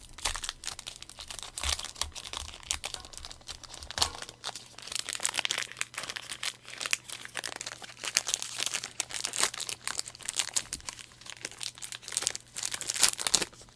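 Foil Yu-Gi-Oh booster pack wrapper crinkling and crackling as it is pinched and torn open, with a louder burst of crinkling near the end. A faint steady low hum underneath.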